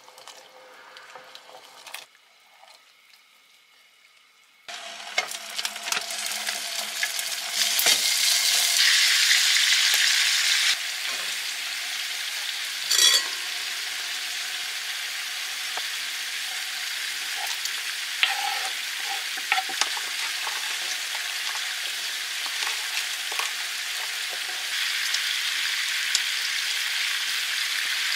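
Bone-in rib pieces frying in a pan with a steady sizzle, which starts abruptly about five seconds in and is loudest for a few seconds around eight to ten seconds in. There are occasional clicks of utensils against the pan.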